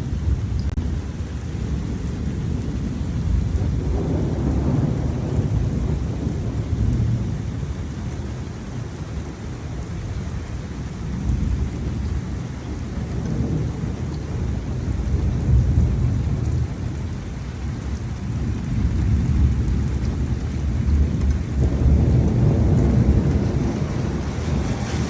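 Thunderstorm: steady rain with low rolling thunder that swells and fades several times.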